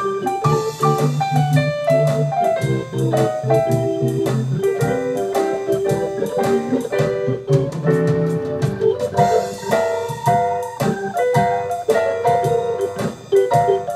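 Live keyboard jam of a blues in G: piano-style lines on one keyboard over chords on a two-manual organ, with a steady drum beat underneath.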